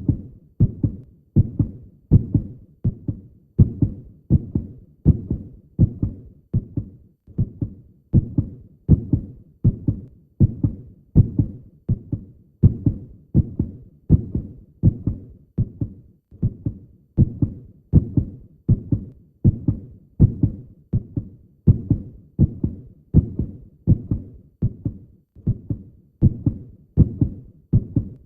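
Heartbeat: a steady lub-dub, each beat a pair of soft low thuds, repeating evenly a little faster than once a second.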